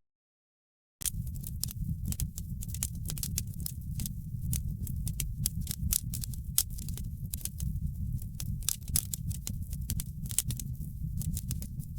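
Wood fire burning in a fireplace: a steady low rumble with dense, irregular sharp crackles and pops. The sound drops out completely for about the first second, then resumes.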